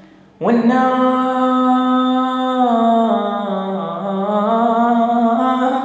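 A man singing a long held note, starting about half a second in after a brief pause, then sliding down and back up in ornamented turns.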